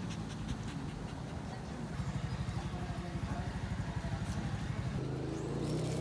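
Small white long-haired dog panting fast and evenly, about six pants a second. About five seconds in it gives way to a steady low hum.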